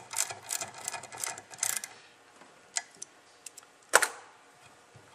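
Ratchet clicking in quick short strokes, about four clicks a second, as the spray gun's fluid tip is tightened, stopping about two seconds in. A few light clicks follow, then one loud knock about four seconds in.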